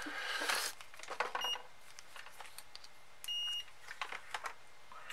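Digital multimeter beeping: a short high blip, then about two seconds later a steady beep lasting about a third of a second. Light handling clicks and rustles come before it.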